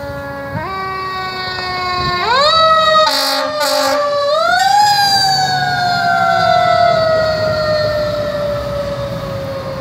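Fire engine's mechanical Q siren winding up in steps, rising again, then slowly winding down with a long falling wail as the engine passes. Two short loud bursts come about three seconds in.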